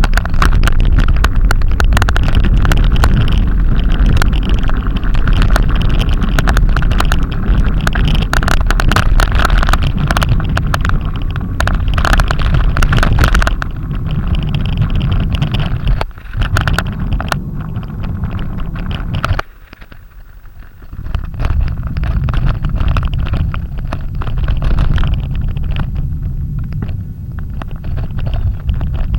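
Strong wind buffeting the microphone: a loud, gusting rumble that dips briefly a little past halfway and again about two-thirds through.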